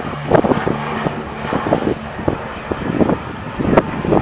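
Canadair CL-415 water bomber's twin turboprop engines running as it flies low past, a steady low drone. Gusts of wind buffet the microphone throughout.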